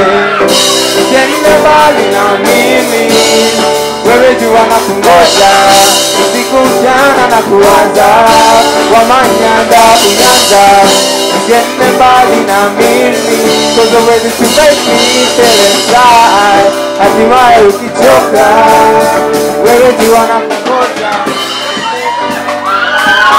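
Live band playing a song: a singer with electric guitar and drum kit, cymbals hissing throughout.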